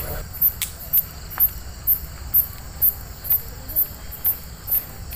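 A cricket chirping in a steady high-pitched rhythm, about two chirps a second, with a low rumble underneath.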